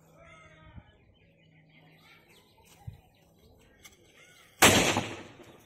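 A homemade pipe pistol, lit at its touch hole with a lighter, fires once with a single sharp bang about four and a half seconds in, the report dying away over about half a second. Small birds chirp faintly before it.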